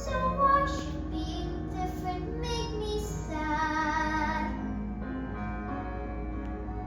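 Music with a high voice singing a melody, holding a wavering note with vibrato in the middle.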